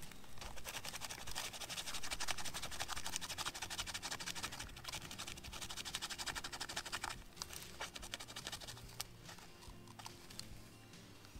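Fast, fine scraping, many strokes a second, as hands work at a bundle of birch bark and dry twigs to make tinder. After about seven seconds it thins out to a few scattered scrapes and crackles.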